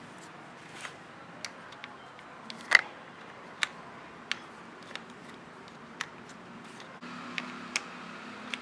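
Irregular sharp clicks and taps of hand tools and small parts being handled, the loudest about three seconds in.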